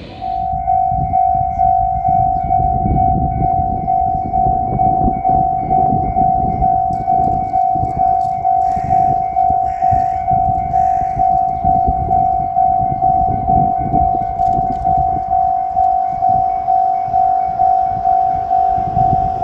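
Japanese railroad crossing alarm ringing: a single electronic bell tone struck about three times every two seconds. It starts suddenly right at the beginning, with a low rumble underneath.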